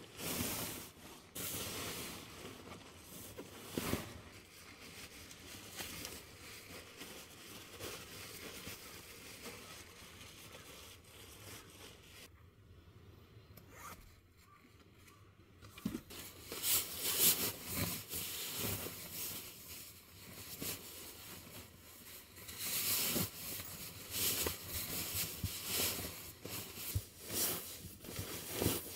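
Sleeping bag and bedding fabric rustling and scraping as they are rolled up and stuffed into a sack, with a busier run of short, loud rustles in the second half.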